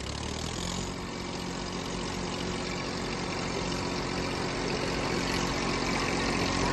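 Tractor diesel engines, the Massey Ferguson 1035 DI's three-cylinder among them, run steadily under load at the start of a tractor tug-of-war pull, slowly getting louder.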